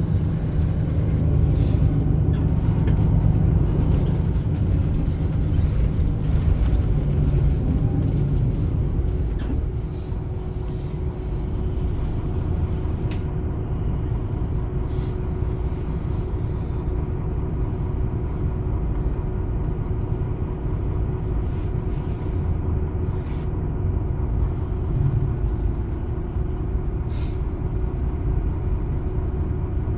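MAN Lion's City A21 city bus's 360 hp diesel engine pulling with a heavy low rumble for the first nine seconds or so. It then eases to a slightly quieter, steady run with a constant hum, and occasional short clicks come through.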